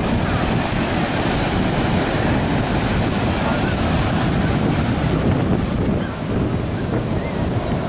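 Ocean surf washing onto the beach, with steady wind buffeting the microphone.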